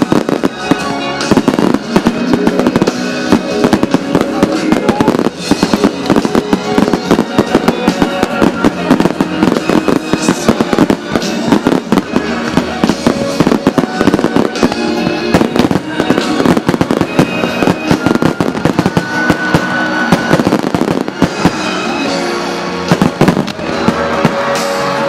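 Fireworks display: aerial shells bursting in rapid, dense bangs, several a second, with music playing under them.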